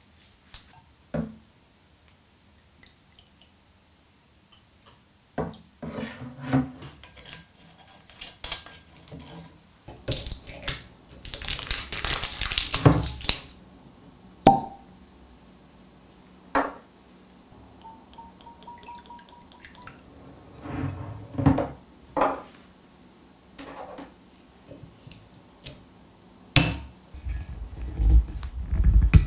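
Glass rum bottles being handled and opened: screw caps and a stopper twisted and pulled off, with scattered clicks, knocks and glass clinks and a longer scraping twist around the middle.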